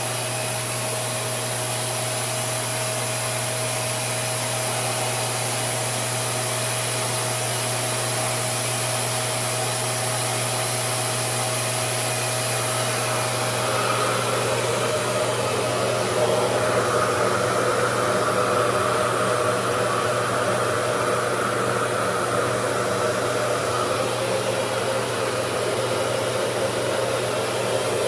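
RevAir reverse-air blow dryer running steadily, a continuous airflow noise with a faint steady whine. A little past the middle a higher whine joins in for several seconds and the sound gets slightly louder.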